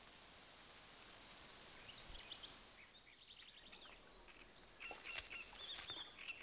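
Faint reed-bed ambience with small birds chirping: scattered high chirps, a quick trill about three seconds in, and livelier chirps from about five seconds in.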